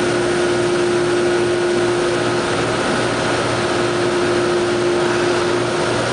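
CNC laser cutter running while it cuts parts: a steady fan-like rush with a constant hum underneath.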